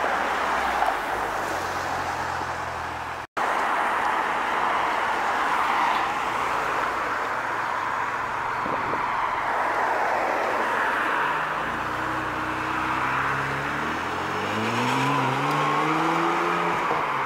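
Ferrari 612 Scaglietti's V12 pulling away and accelerating, its engine note climbing in pitch over the last few seconds, over a steady hiss of road and wind noise. A different car passes in the first three seconds, before a cut.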